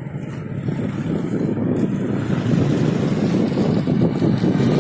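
Wind buffeting the phone's microphone: a rough, fluctuating low rumble that builds slightly over a few seconds.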